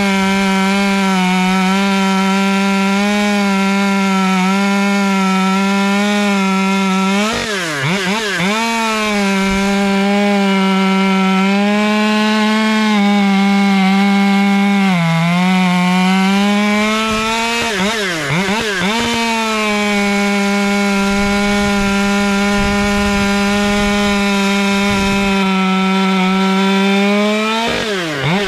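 Husqvarna T540 XP Mark III two-stroke top-handle chainsaw held at high revs, cutting back-to-back rounds off a log of dry, old ash. The engine note stays high and steady, with four brief dips in pitch as one cut ends and the next begins, the last near the end.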